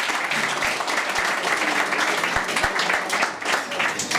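A room of people applauding: many hands clapping steadily.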